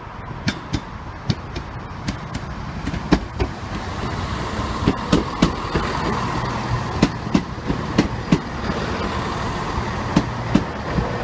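ScotRail Class 170 Turbostar diesel multiple unit running past close by, its underfloor diesel engines humming louder as it nears. Sharp clicks come in quick pairs as its wheels cross rail joints.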